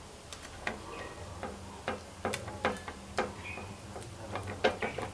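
Steel spoon clicking and tapping against a steel tin while pressing chopped almonds and cashews down into soft milk powder burfi: about a dozen irregular sharp ticks, the loudest near the end.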